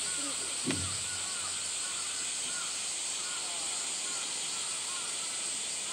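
Steady high-pitched summer cicada drone, with short chirps recurring throughout and a single knock about a second in.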